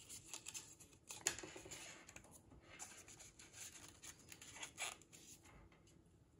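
Faint rubbing and scraping of a foam sleeve sliding inside a clear plastic barrel tube, with its wires being pulled through. There is a sharper scrape about a second in.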